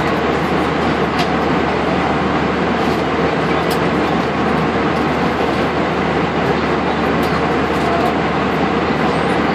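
Airbus A320 cabin noise in flight: the jet engine and the rushing airflow running steadily, with a faint hum and no change in loudness.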